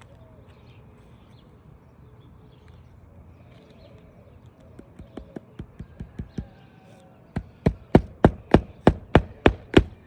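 Hammer driving roofing nails through asphalt shingles: light taps to start a nail about halfway through, then a run of hard, evenly spaced blows, about three to four a second.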